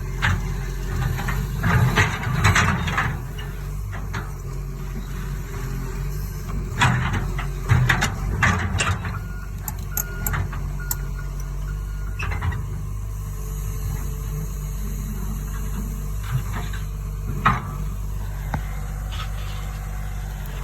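Cat 315 LC excavator's diesel engine running steadily, with bursts of clanking and scraping from the bucket working dirt, loudest a couple of seconds in and again around seven to nine seconds in, and a single knock near the end.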